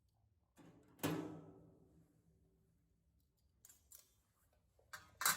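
A sharp metallic clank about a second in that rings on and fades over about a second, then a few light clicks and another sharp knock near the end: sheet metal and tools being handled.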